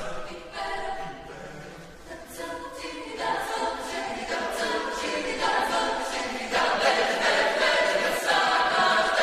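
Mixed-voice chamber choir singing a cappella, starting softly and growing louder, with the sound filling out about three seconds in and again more strongly around six and a half seconds.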